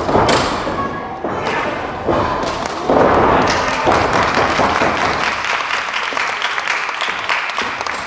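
A hard thud of a wrestler's body hitting the ring canvas just after the start, followed by noisy crowd reaction with scattered claps and shouts that swells about three seconds in.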